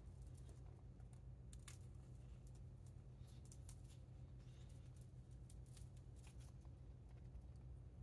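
Faint, irregular clicks and snips of a parrot's beak nibbling at a plush toy duck, over a low steady hum.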